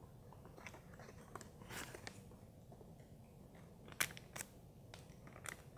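Faint rustling and handling of small cardboard and plastic packaging, with two sharp clicks about four seconds in.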